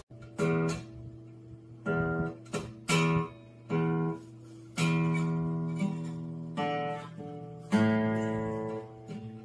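Open strings of an acoustic guitar strummed by a cat's paw: about eight irregular, unrhythmic strums, each left to ring and slowly fade before the next.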